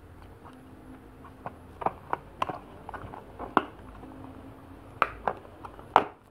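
Plastic toy packaging being handled and its tab pulled open: scattered clicks and crinkles, growing louder, with several sharp snaps near the end.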